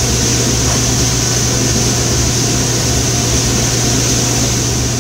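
Steady drone of running commercial kitchen equipment and ventilation, a constant low hum under a high hiss, unchanging throughout.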